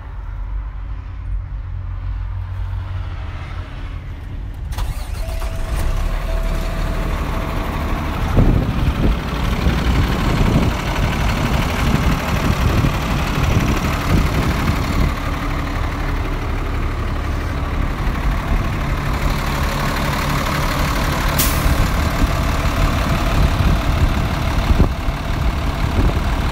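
PACCAR PX-8 diesel engine idling steadily, muffled at first, then louder and clearer from about five seconds in.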